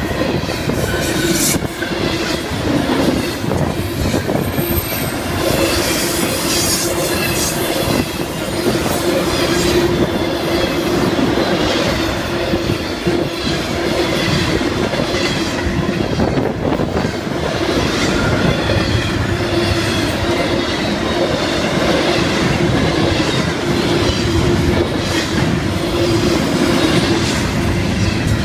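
Florida East Coast Railway freight train rolling past, its steel wheels clicking over the rail joints with a steady ringing tone from the wheels on the rail.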